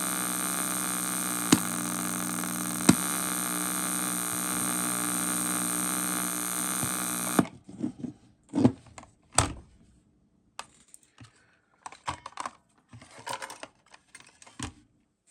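Panasonic RQ-V150 cassette player's tape playback putting out nothing but a steady static buzz and hiss with hum, with two clicks, then cutting off suddenly about seven seconds in; the owner puts the noise down to a bad motor capacitor or a grounding fault. After it stops come scattered clicks and knocks of the player being handled.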